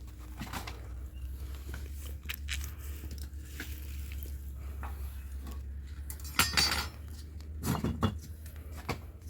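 Scattered clinks and knocks of hard household objects being handled, with louder clatters about six and a half seconds in and again near eight seconds, over a steady low rumble.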